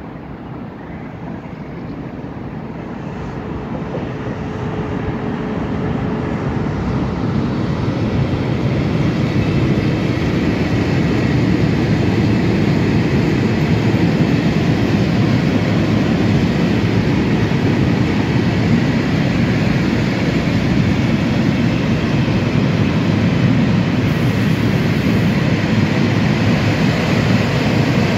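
Freight train of silo wagons, hauled by an electric locomotive, rolling past: steady rumble of wheels on rail that grows louder over the first ten seconds as it comes near, then holds steady as the wagons go by.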